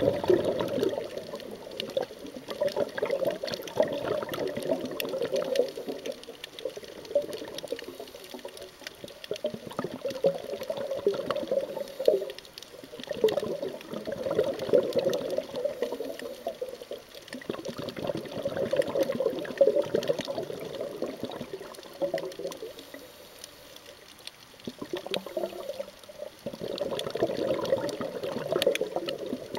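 Scuba diver's exhaled bubbles from the regulator, heard underwater: bubbling in bursts of a few seconds, with quieter pauses between breaths.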